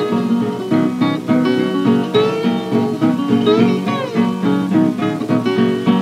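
Acoustic guitar playing an instrumental break in country blues style on a 1930 78 rpm record, picked notes in a steady rhythm, a few of them gliding in pitch.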